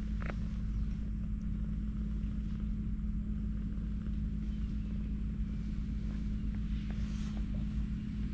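A steady low mechanical hum, like a distant engine running, with a few faint soft clicks of a cat licking its fur close by.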